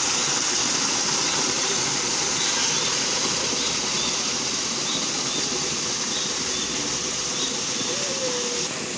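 Steady rushing of running water in a muddy stream.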